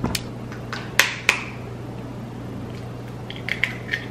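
An egg knocked twice against a glass mixing bowl about a second in, then a few small crackles near the end as the shell is pulled open over the bowl. A steady low hum underneath.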